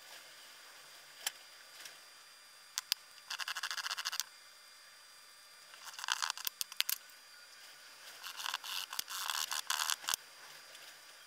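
Steel wool scrubbing the small brass parts of a Stanley Bailey #4 hand plane, its depth-adjuster nut and screws, in three spells of fast scratchy rubbing, the last the longest, with a few light clicks before them.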